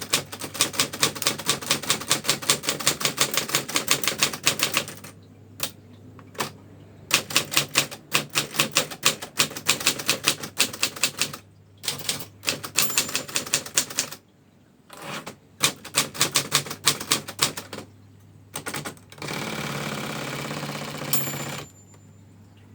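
Brother manual typewriter typed on in fast runs of keystrokes with short pauses between them. Near the end comes a steadier rasping sound of about two seconds, with a high ringing tone that lingers after it.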